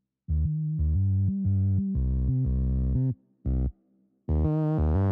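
Background music: a synthesizer line of short held notes stepping up and down in pitch, with brief silent gaps between phrases.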